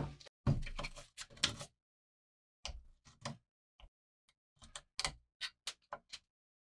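An irregular run of short clicks and knocks from hard objects being handled, with a louder cluster of knocks in the first second and a half, then sparse lighter clicks.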